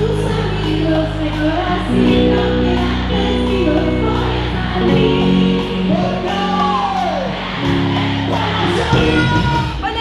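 Live band music: a woman sings over held keyboard chords and bass, the chords changing every second or so.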